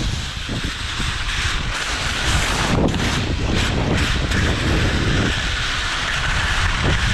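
Wind rushing over a GoPro's microphone while skiing downhill, with a steady hiss of skis sliding over snow.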